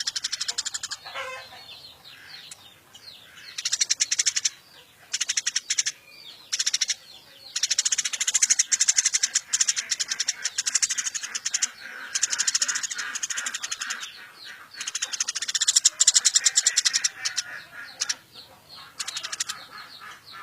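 Eurasian tree sparrow giving a rapid, shrill chattering, many chirps a second in bursts of a second or more, broken by short pauses.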